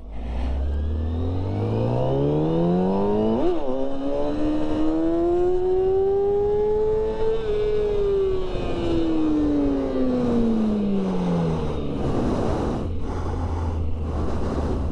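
Motorcycle engine accelerating, its pitch climbing for several seconds with a brief sharp blip about three and a half seconds in, then falling away as it slows. A rougher, noisier engine note follows near the end.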